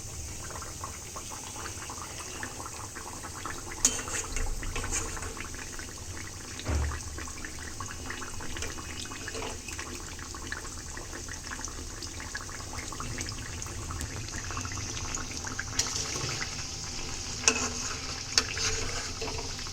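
Chicken cutlets sizzling as they fry in hot oil: a steady hiss with constant small crackles, and a few sharper pops or clicks, one about four seconds in and a couple near the end.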